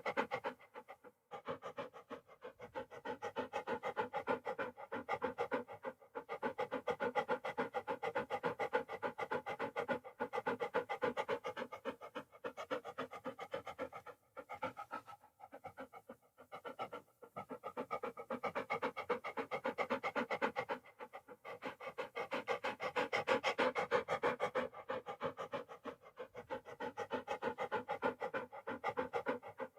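Dog panting rapidly in fast, even breaths, broken by a few short pauses.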